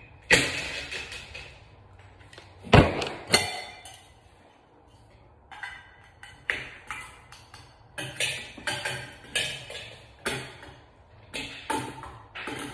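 Metal parts of a ceiling fan's canopy and mounting bracket clinking and knocking as they are handled and taken down. Two loud knocks come about three seconds in, then a quicker, uneven run of taps and clinks.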